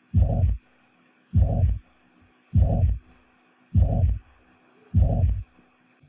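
Heart sounds of mitral regurgitation: a whooshing systolic murmur that fills each beat from the first to the second heart sound at the same intensity, five slow beats about 1.2 seconds apart.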